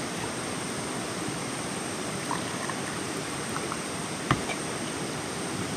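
Steady rush of flowing river water, with a single sharp knock about four seconds in.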